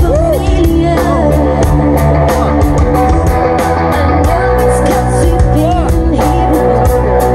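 Live rock band playing: electric guitar over bass, drums and keyboard, with a heavy low end and steady cymbal ticks.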